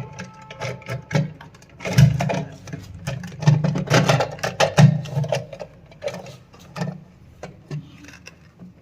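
Clicking, rattling and knocking of plastic cistern parts being handled and fitted, in irregular bursts that thin out near the end.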